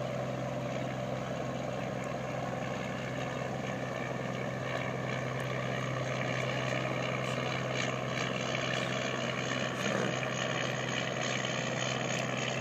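Shrimp trawler's engine running steadily as the boat passes along the waterway, a continuous low drone.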